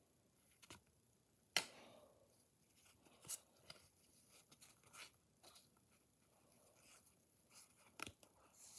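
Pokémon trading cards handled and flipped through by hand: soft scattered rustles and flicks of card against card, with a sharp snap about a second and a half in as the loudest sound and smaller clicks later.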